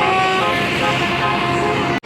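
Indonesian bus 'telolet' multi-tone air horn (Basuri type) sounding a stepped melody of toots over a noisy wash. It cuts off suddenly at the end.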